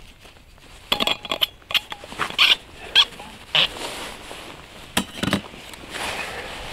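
Close handling noise of a steel thermos flask and its screw cap: a series of short clicks and knocks, with jacket fabric rustling near the end.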